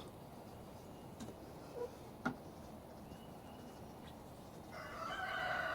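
A rooster crows near the end, one long, strained call, after a few faint clicks.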